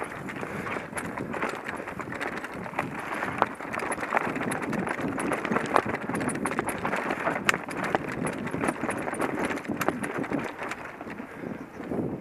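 Mountain bike rolling over a rocky trail: a steady rumble of tyres on rock and gravel, with frequent sharp clicks and knocks as the bike rattles over the stones.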